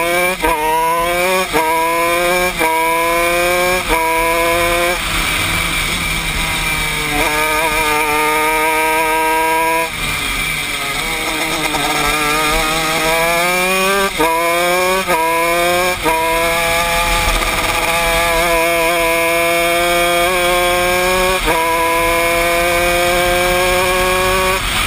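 Honda 125cc shifter kart's single-cylinder two-stroke engine at full racing revs. The pitch climbs in quick runs, each cut short by a brief drop at an upshift, four times in the first few seconds. It falls away twice under braking and downshifts for corners, then pulls up in long rising runs.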